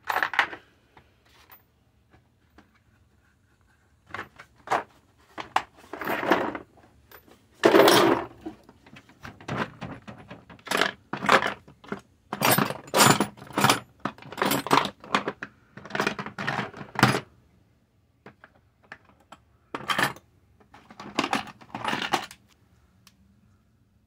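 Metal hand tools clinking and rattling as they are handled: irregular clusters of sharp metallic clinks, with short pauses between them.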